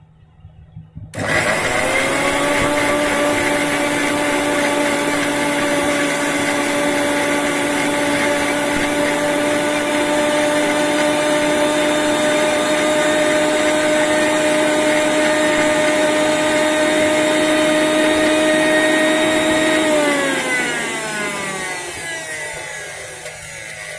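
Electric kitchen mixer grinder blending jamun fruit into a paste: the motor starts about a second in with a quickly rising whine and runs at a steady high speed. Near the end it is switched off and the whine falls in pitch as the blade spins down.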